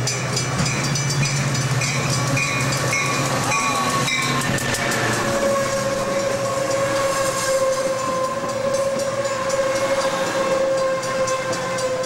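Passenger train pulling into a station at close range. The locomotive's low engine hum and a bell ringing in short strokes give way, about four seconds in, to a long steady squeal that falls slightly, typical of the cars' brakes as the train slows, with wheels clacking over the rail joints.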